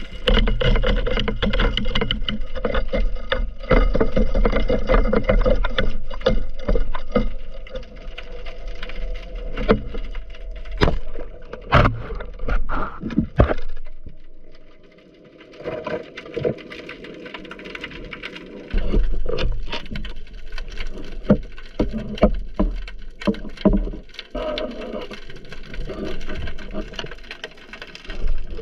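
Muffled underwater noise through an action camera's waterproof housing: a deep rumble of moving water with frequent sharp clicks and knocks as the speargun, shaft line and housing knock about. It drops quieter briefly about halfway, then the rumble and knocks return.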